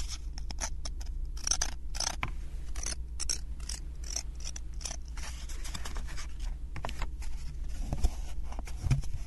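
Close-up scratching and rustling of a small sheet of sandpaper handled with the fingers, in many short, quick strokes. Later, a thin plywood puzzle sheet is picked up and handled, with a single knock about eight seconds in.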